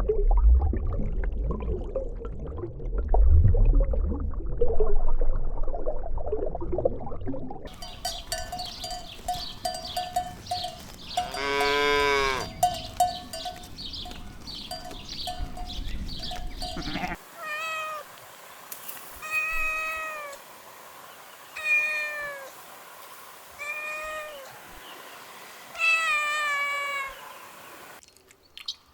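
Low rumbling noise for the first several seconds, then one drawn-out pitched animal call near the middle, then a cat meowing repeatedly in short calls about two seconds apart.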